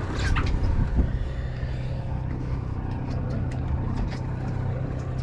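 A charter fishing boat's engine running with a steady low hum, with a few faint clicks and knocks over it.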